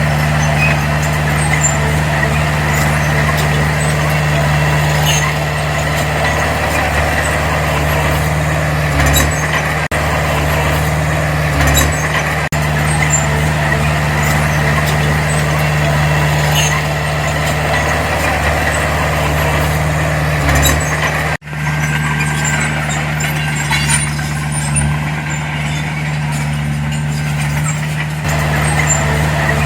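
Heavy diesel earthmoving machinery (bulldozer or dump truck) running steadily with scattered light clanks and ticks. The sound drops out for an instant about two-thirds of the way through.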